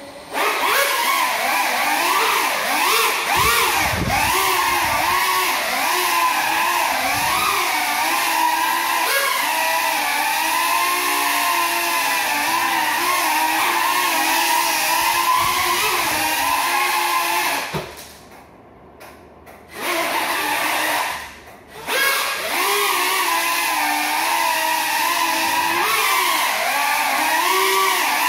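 Small FPV quadcopter's electric motors spinning broken propellers: a loud buzzing whine that wavers up and down in pitch as the throttle changes. The drone stays grounded. The whine starts about half a second in, cuts out for about two seconds past the middle, and drops out again briefly a little later before picking back up.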